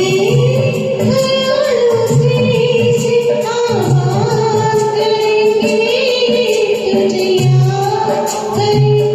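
Hindi film song music from a karaoke backing track: a single wavering lead melody over a bass line that comes and goes in short blocks.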